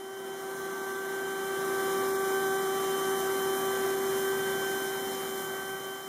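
Carvewright CNC carving machine running: a steady whine at one fixed pitch over a rushing hiss, easing off slightly near the end.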